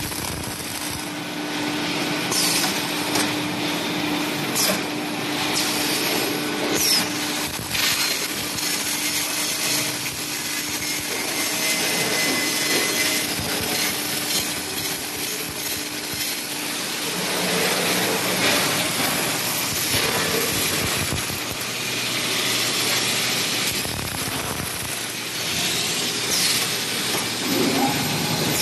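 Automated transformer-fin welding line running: a steady mechanical noise with scattered clicks, and a steady hum through the first eight seconds or so.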